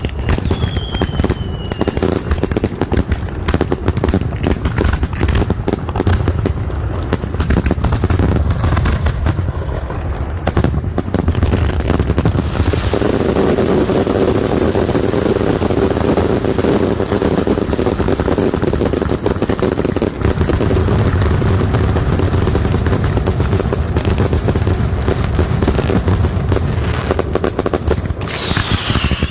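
Castillo fireworks display: a dense run of rapid bangs and crackling that thickens, about halfway through, into a continuous roar of explosions. A falling whistle sounds at the start and again near the end.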